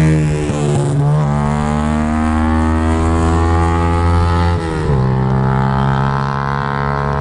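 Yamaha YBR 125 Factor's single-cylinder four-stroke engine running loud through a Roncar Aluminium RS aftermarket exhaust. It holds a steady high note after a brief dip in pitch near the start, then drops sharply to a lower steady note about four and a half seconds in.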